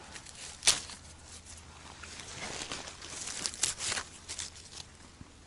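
Dry crackling and rustling of forest-floor litter, with one sharp snap just under a second in and a busier run of crackles in the second half.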